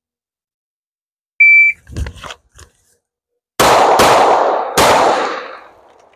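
A shot timer gives one short beep, a few soft clicks follow, then a Glock 19X 9mm pistol fires a quick double tap, two shots about 0.4 s apart, and a third shot about three-quarters of a second later on the transition to a second target, with the echo dying away after the last.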